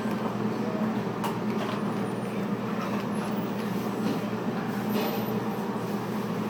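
Steady low mechanical hum of room background noise, with a couple of faint clicks.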